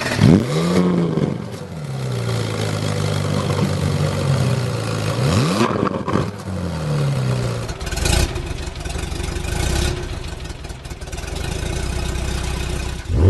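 Car engine idling and revved in three short blips, rising and falling in pitch each time, near the start, about five seconds in and at the end.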